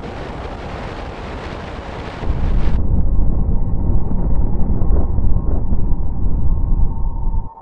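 Strong wind buffeting the microphone: a rushing hiss, turning into a heavier low rumble about two seconds in that cuts off suddenly near the end.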